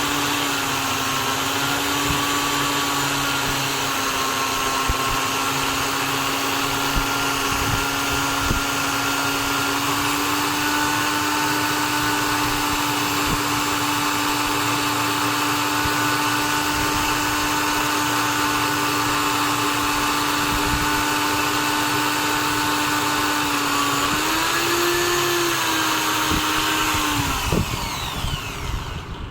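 Drill press motor running steadily at speed, then its pitch falling as it winds down near the end.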